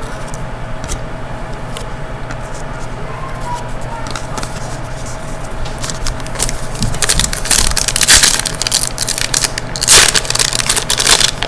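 Crinkling and crackling of a hockey card pack's wrapper being torn open and handled. It starts about halfway in and grows louder, over a steady low hum.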